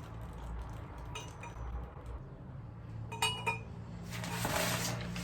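Flat-pack cart bars and parts clinking against each other as they are handled and laid out. There is a light clink about a second in and a cluster of ringing clinks around three seconds in, then a stretch of shuffling handling noise near the end.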